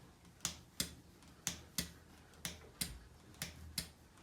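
Shimano bicycle shifter being clicked repeatedly through its gears, stepping the rear derailleur across the cassette: sharp clicks in pairs, about one pair a second.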